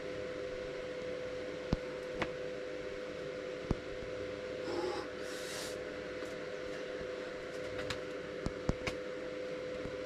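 Steady outdoor hiss with a faint steady hum, broken by a few sharp taps as a boulderer's hands and shoes hit the rock: two about two seconds in, one near four seconds, and three in quick succession near the end. A short hissing rush comes about five seconds in.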